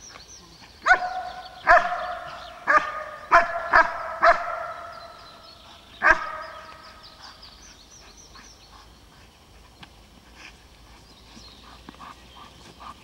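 Large black dog barking seven times at a bite sleeve during protection training: six barks in quick succession over the first few seconds, then one more about six seconds in.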